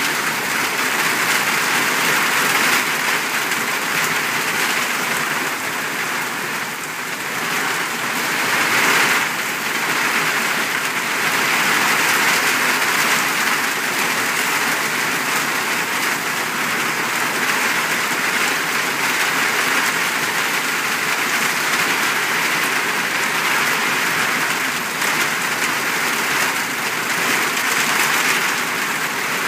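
Heavy monsoon downpour: rain pouring onto flooded pavement as a loud, steady hiss. It dips briefly about seven seconds in.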